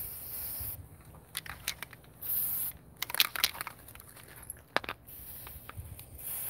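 Aerosol spray can of cold galvanizing paint hissing in three short bursts as the bolts are coated, the last starting about five seconds in. A few sharp clicks and rattles from handling the can come in between.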